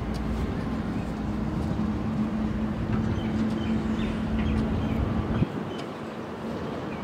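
A steady motor hum with a constant low drone that cuts off suddenly about five and a half seconds in, with a few faint high chirps in the middle.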